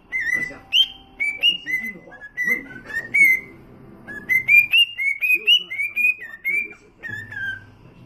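Lutino cockatiel whistling a tune: a quick run of short whistled notes that slide up and down in pitch, with a brief pause a little past halfway, ending on a few falling notes.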